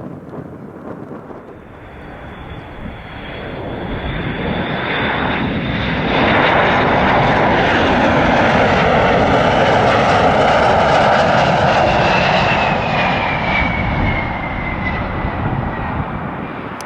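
Boeing WC-135 Constant Phoenix's four TF33 turbofan engines on approach, growing louder to a peak about halfway through. Near the end a high engine whine drops in pitch as the jet passes and the sound eases off.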